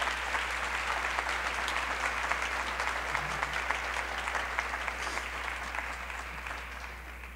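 Audience applauding, a dense patter of many hands that slowly dies away near the end.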